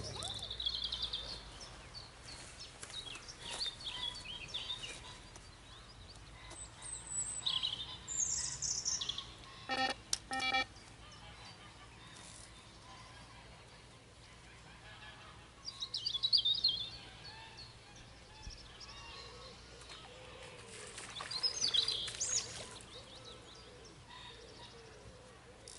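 Songbirds calling in short bursts of high chirping, several times over. About ten seconds in there are two short beeps.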